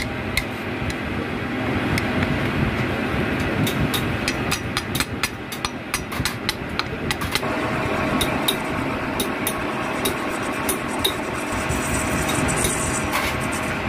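Sharp metal-on-metal knocks in quick succession as a motorcycle clutch housing is tapped true in a lathe's chuck. About halfway through, a steady tone joins as the lathe spins the housing and a cutting tool turns the brass-brazed bore of the housing, which had been left loose and wobbling.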